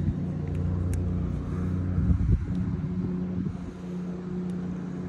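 Wright Stander ZK commercial stand-on mower's engine running steadily, a low even hum, with a few faint clicks.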